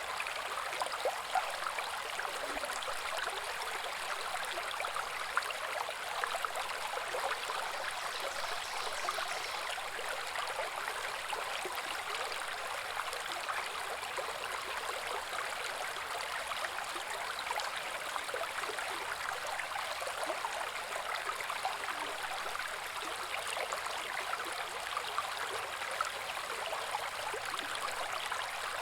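Small woodland brook babbling and gurgling over rocks: a steady, even rush of running water, full of small splashes.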